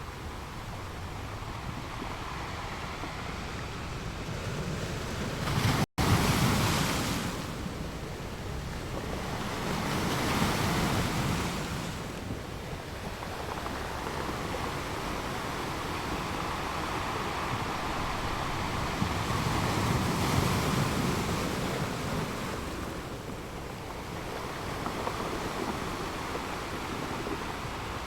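Sea waves surging and washing ashore, swelling louder about six, ten and twenty seconds in, with a split-second cut-out just before the first swell.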